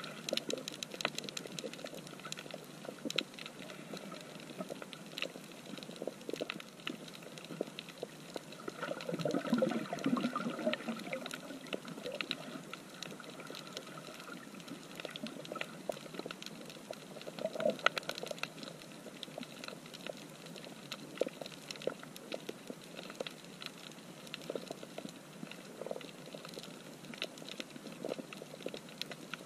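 Underwater coral-reef soundscape: a dense, continuous crackle of short clicks, typical of snapping shrimp, over a steady hiss. About nine seconds in, a louder, lower rushing noise swells for a couple of seconds.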